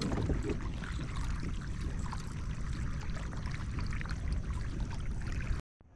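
Water splashing and lapping against a kayak's hull, over a steady low rumble. It cuts off abruptly about five and a half seconds in.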